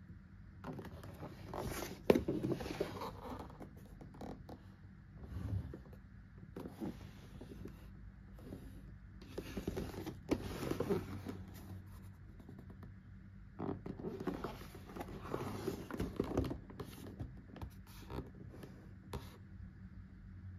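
Cardboard box being handled and turned over: hands rubbing and scraping on the cardboard in several bouts, with scattered clicks and a sharp tap about two seconds in.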